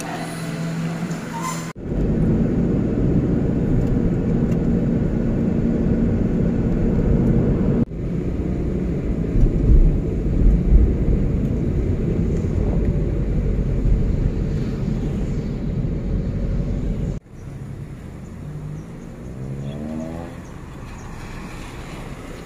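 A moving car heard from inside: a loud, steady low rumble of engine and tyres on the road. It starts suddenly about two seconds in and turns quieter suddenly near the end, where a rising tone is heard.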